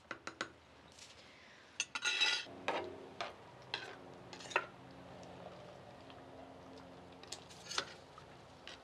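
A metal spoon stirring broth in a clay pot, clinking and scraping against the pot's rim and sides. There are scattered taps, with a brief run of scraping about two seconds in.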